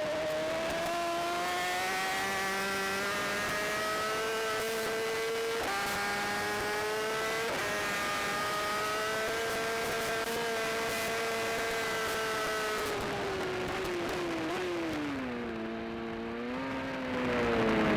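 Racing motorcycle engine at high revs under hard acceleration, its pitch climbing and dropping sharply at two upshifts about six and seven and a half seconds in. Near the end the revs fall away in steps, with a quick blip, as the rider brakes and downshifts.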